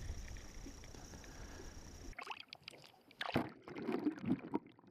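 Faint water and boat noise, then from about three seconds in a few irregular splashes and knocks: water splashing and tackle handling in a small fishing boat while a hooked fish is played.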